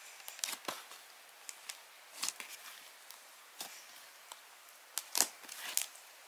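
Glue slime being kneaded into butter slime with magical clay, pressed and squeezed by hand against a tray: irregular short squishes and sticky crackles, the loudest about five seconds in.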